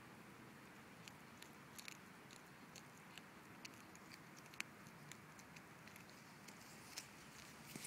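Siamese cat chewing a mouse: faint, irregular crunching clicks, with a sharper snap about halfway through.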